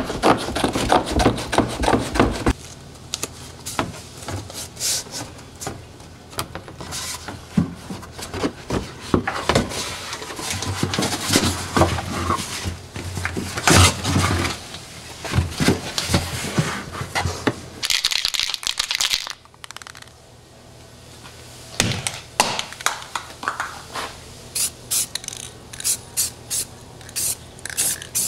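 Background music for the first couple of seconds, then hands-on workshop noises: masking paper crinkling and being cut, scrapes, rubs and knocks against a bed-liner-coated subwoofer box. Near the end comes a run of quick clicks and an aerosol spray can hissing as paint goes onto the window lip.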